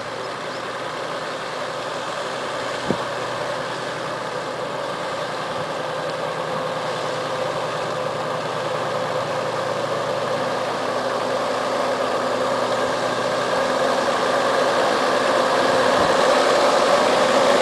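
Nissan Patrol 4x4 engine running steadily as the vehicle wades through flood water, growing louder as it comes closer.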